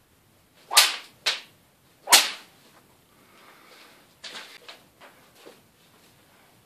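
Three sharp swishes of a Hanwei Tactical Katana blade whipping through the air and slicing hanging paper, the first two close together and the third about a second later, followed by softer rustles and knocks.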